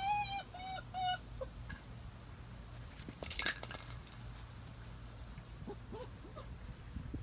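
German Shepherd puppy whining: three short, high-pitched whimpers in the first second or so. A brief scuffling noise follows a little past three seconds in.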